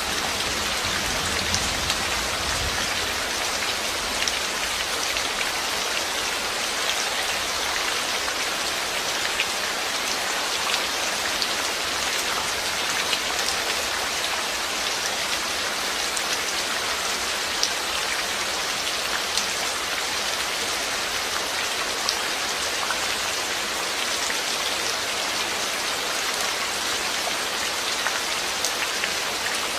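Steady rain falling on a surface, a dense even hiss with many small, sharp drop ticks scattered through it.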